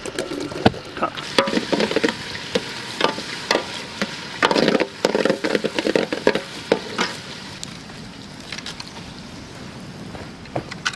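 Chopped onions frying and sizzling in hot oil in a cooking pot over a wood fire, with a spoon repeatedly knocking and scraping against the pot as they are stirred. The stirring clatter is busiest in the first half and thins out later.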